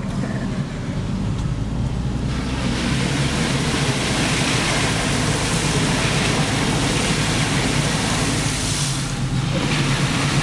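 A car driving through floodwater across the road: water rushes and sprays against the body and side windows, heard from inside the cabin over the running engine. The rush starts about two seconds in and eases briefly near the end.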